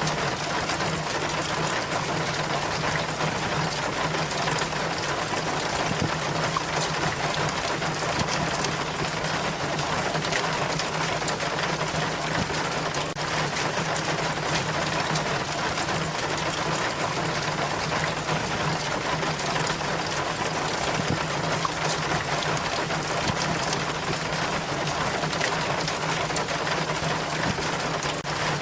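Rainwater running and splashing down a rain chain in a steady, unbroken trickle, with a steady low hum beneath the water.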